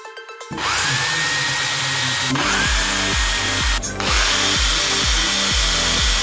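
Electric hand drill running against a sheet-metal amplifier cabinet, its motor whine rising as it spins up about half a second in and twice more after brief let-offs, over a steady grinding hiss. Background dance music with a steady beat plays underneath from about two seconds in.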